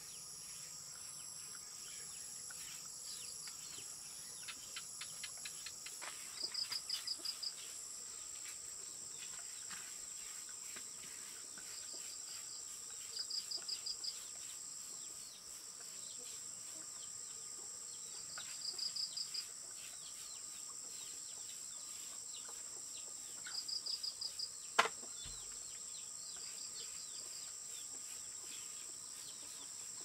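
Insects droning steadily at a high pitch, with short trains of rapid chirps every few seconds and one sharp click late on.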